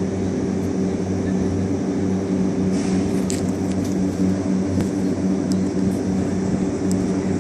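Engine of a trailer-mounted high-volume tea sprayer running steadily at a constant speed, with a few faint ticks on top.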